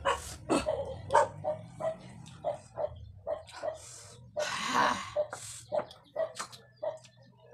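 A dog barking repeatedly in short, quick yaps, about two or three a second, with a longer breathy hiss about four and a half seconds in.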